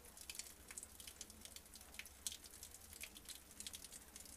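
Near silence: faint room tone with a few scattered faint ticks.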